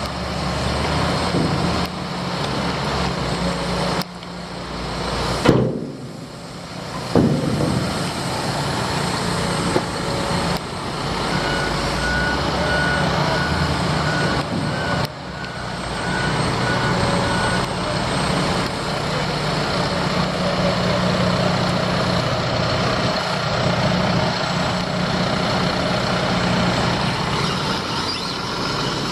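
Diesel engines of dump trucks and an excavator running steadily, with two loud knocks a few seconds in. Midway, a truck's reversing alarm beeps evenly for about six seconds.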